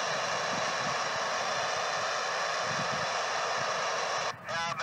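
Steady static hiss from a handheld FM radio tuned to the International Space Station's 145.80 MHz downlink, with no clear signal. Near the end the hiss suddenly drops and a voice starts to come through the radio.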